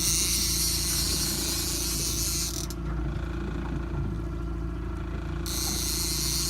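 A fishing reel giving a high, hissing mechanical whir while a king salmon is being fought, stopping about two and a half seconds in and starting again near the end. Under it the boat's motor runs with a steady low hum.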